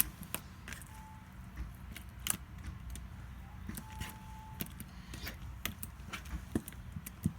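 Borax-and-white-glue slime being squished and poked by hand, giving scattered small clicks and pops at irregular intervals.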